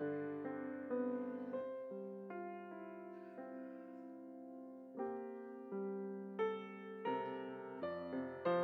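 Slow piano playing, unhurried chords struck about once a second, each one fading away before the next.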